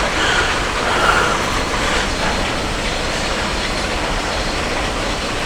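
Storm Night Road bowling ball rolling down the lane, a steady rumble.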